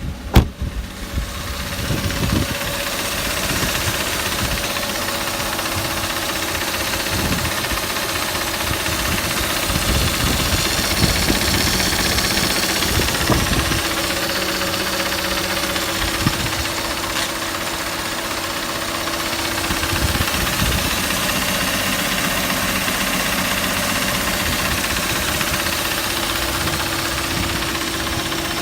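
A car door shutting with a thump at the very start, then a Mercedes-Benz W124's engine idling steadily.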